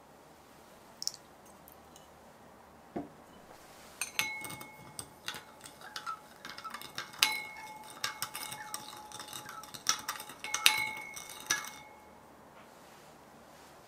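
Metal teaspoon stirring granulated sugar in a small glass bowl, clinking and scraping against the glass so the bowl rings. A couple of single taps come first; the stirring starts about four seconds in and stops near the end.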